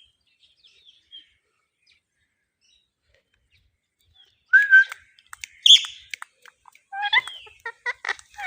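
Ringneck parrot chirping: a few faint chirps, then a quiet stretch, then loud calls from about halfway through, ending in a quick run of short chirps and clicks.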